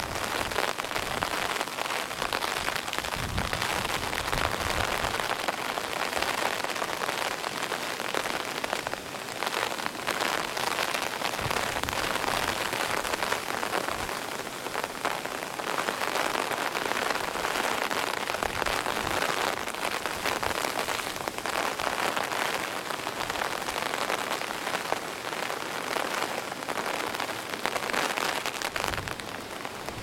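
Typhoon rain falling steadily and hard on a wet wooden boardwalk and pond, with a few short low gusts of wind on the microphone.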